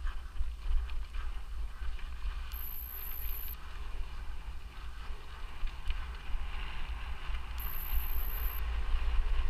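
Mountain bike being ridden on a trail, with a steady low wind rumble on the microphone. A high-pitched beep sounds twice, each about a second long and about five seconds apart.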